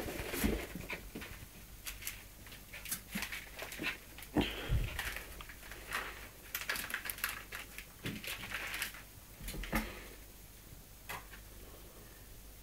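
Westie puppy play-fighting with a tabby cat: short bursts of dog noises and scuffling, coming in quick clusters and dying down about ten seconds in.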